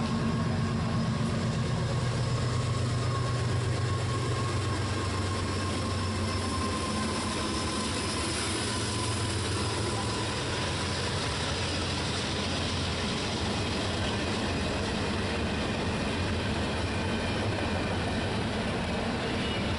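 Norfolk Southern diesel locomotive running as it pulls a double-stack intermodal train past, its engine drone strongest at first and then easing off. A steady rumble of the double-stack well cars' wheels rolling on the rails follows.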